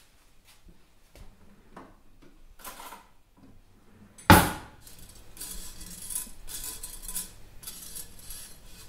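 Stainless-steel saucepan on a gas hob: a few faint knocks, then one loud metal clank about four seconds in. After it comes repeated scraping and clinking of a metal fork against the pan among spaghetti.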